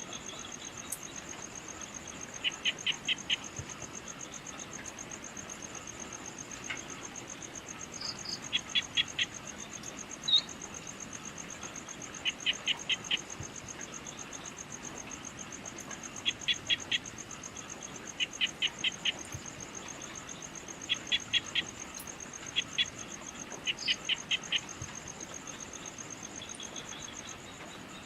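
Insect trilling steadily in a high, fast-pulsing note, with short runs of four to six quick chirps repeating every few seconds over it and an occasional single chirp.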